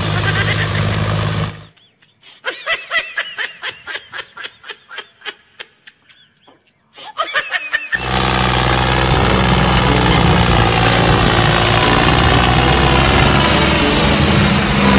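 A loud, steady engine-like drone with a low hum cuts off suddenly, giving way to about six seconds of rapid high-pitched laughter, about four peals a second. The engine-like drone cuts back in about eight seconds in.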